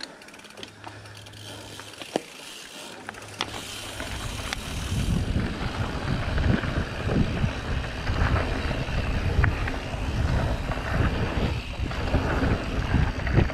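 Orbea Occam AM mountain bike rolling down a dirt singletrack: a few clicks and knocks from the bike at first, then tyre noise on the dirt and heavy wind buffeting on an unshielded camera microphone. The buffeting grows loud and gusty from about four seconds in as the bike picks up speed.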